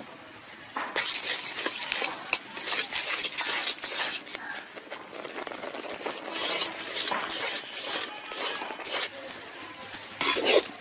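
Metal spatula stirring and scraping wet rice flour around a metal karahi in quick repeated strokes, with a lull around the middle. The flour is being worked into boiled water to form dough.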